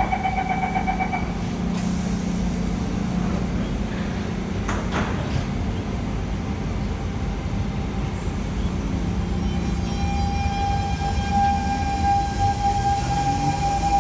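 A door-closing warning chime beeps in the first second, then air hisses and the sliding doors knock shut. From about ten seconds in, the Siemens C651 metro train's traction equipment starts a steady whine, with lower tones climbing in pitch as the train pulls away from the platform.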